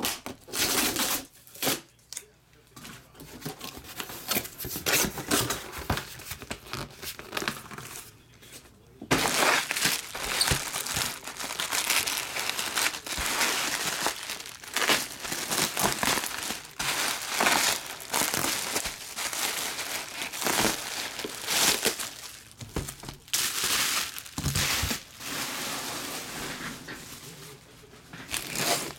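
Plastic packaging of a trading-card box being torn open and crumpled by hand. The crinkling is sparse at first and becomes dense and continuous from about nine seconds in.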